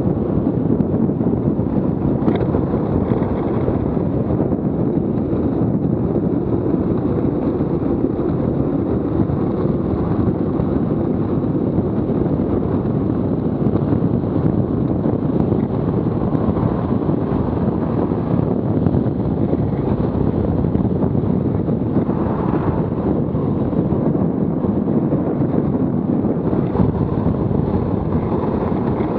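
Steady rush of wind on the microphone mixed with the rumble of a Buggy Rollin wheelsuit's wheels rolling on asphalt at about 30 to 50 km/h downhill.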